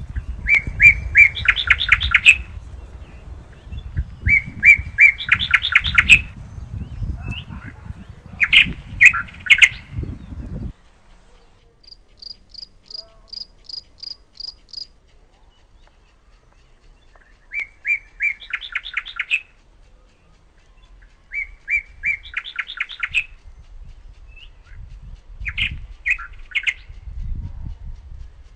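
A songbird singing the same short phrase again and again, about every four seconds: a few repeated notes running into a fast trill, six phrases in all. Midway a second, thin, high series of about nine evenly spaced notes sounds. A low rumble under the first ten seconds stops abruptly.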